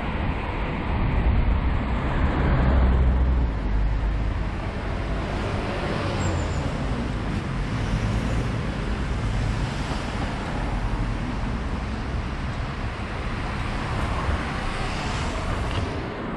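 Road traffic: vehicles passing with steady tyre and engine noise, and a low rumble that swells loudest about two to three seconds in.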